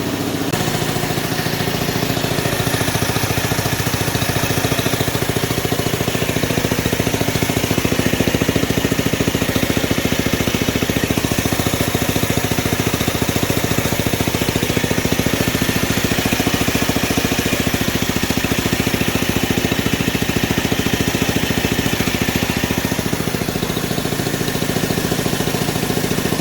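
Small combustion engine of a hand-built scale RC Cat D11 bulldozer running steadily, with a rapid, even firing beat.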